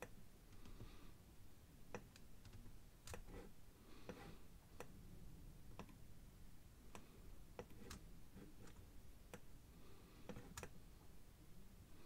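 Faint single clicks of a computer mouse at irregular intervals, about a dozen in all, over near-silent room tone.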